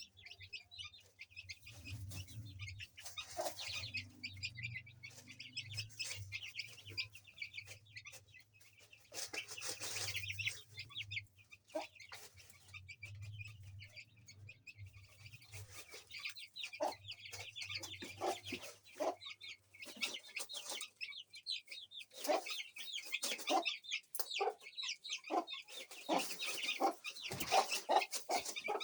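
Chicks peeping with many short, high chirps, and an Aseel hen clucking in short low calls that come more often in the second half. A faint low hum lies underneath until about two-thirds of the way through.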